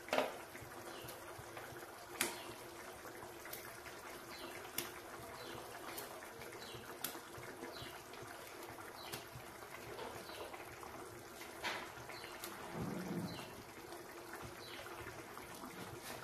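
Thick curry gravy simmering in a frying pan, with faint bubbling and a few sharp little clicks as paneer cubes are set into it.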